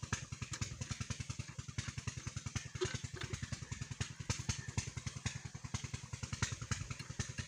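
20 HP Peter-type diesel engine running steadily, each firing heard as a low, even thud about nine times a second.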